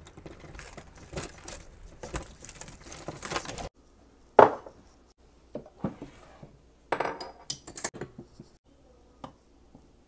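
A key jangling and turning in a front-door lock, with clicks from the knob and latch. Then kitchen-counter clatter: one loud knock about four and a half seconds in, and a quick cluster of ringing clinks near the end from clamp-lid canisters and dishes being handled.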